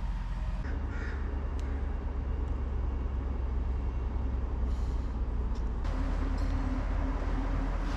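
Outdoor ambience: a steady low rumble that changes character abruptly twice, with a couple of faint bird calls about a second in.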